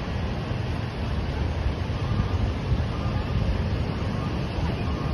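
Wind buffeting the microphone in an uneven low rumble, over a steady wash of surf.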